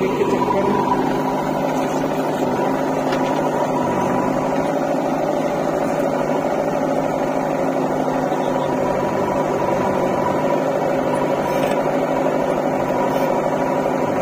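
Heavy diesel engine idling steadily: an even drone that holds one pitch, with no revving.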